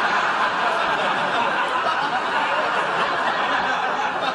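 Sitcom studio audience laughing, a long steady wave of laughter from many people.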